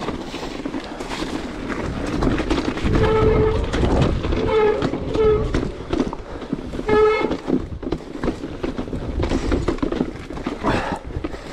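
Mountain bike hydraulic disc brakes honking in several short, steady-pitched blasts as the rider brakes down a wet, rocky descent, over the constant rattle and crunch of tyres and bike on rock and gravel.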